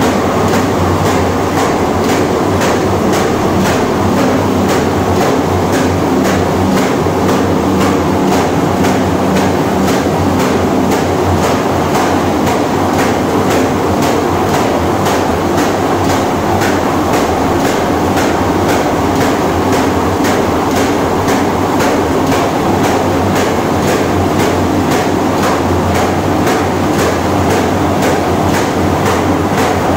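Paper bag making machine running steadily, its belt-driven mechanism clattering with regular knocks about twice a second as it forms and stacks kraft paper bags.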